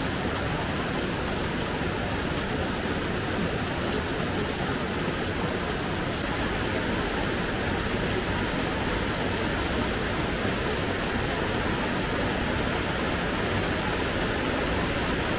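Heavy rain falling, a steady even hiss that holds at one level throughout.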